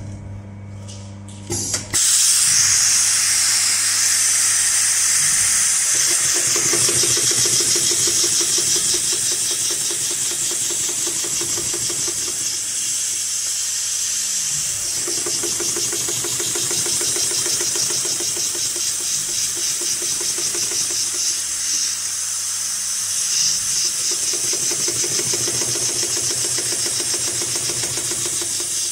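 HighTex 733CS extra-heavy-duty walking-foot industrial sewing machine stitching through thick polyester webbing sling in three runs, with a rapid rhythmic clatter. A loud steady hiss starts about two seconds in and runs under it throughout.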